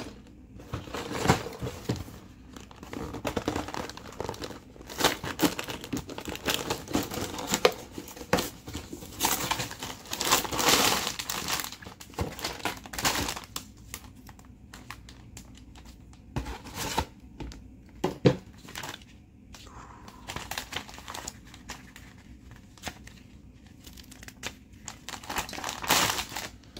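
A cardboard toy box being torn open and clear plastic bags of LEGO pieces crinkling and rustling as they are handled, in irregular bursts with small clicks.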